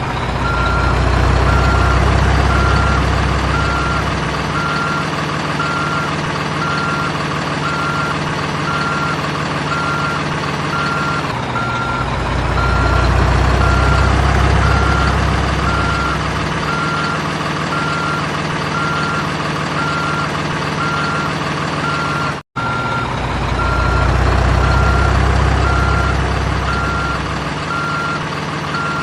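Simulated diesel truck engine sound from an RC toy's sound module, running steadily and swelling three times as if under load, with a reversing beeper sounding throughout. The sound cuts out for an instant about two-thirds of the way through.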